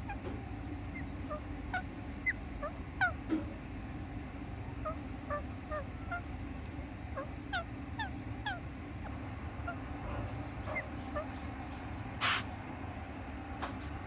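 Pet rose-ringed parakeet giving many short, soft chirps and squeaks, each a quick slide in pitch, at irregular intervals. A brief hiss-like burst of noise comes about twelve seconds in.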